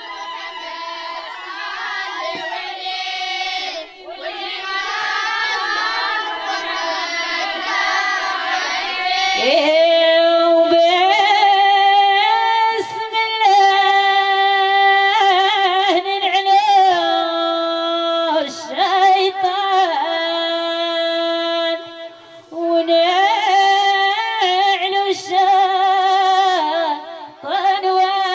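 High women's voices singing a Jbala wedding song: several voices at first, then from about ten seconds one clear voice holding long, wavering notes.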